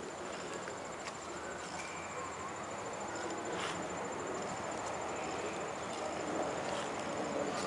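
Insects trilling steadily at a high pitch, over a broad hiss of outdoor background noise.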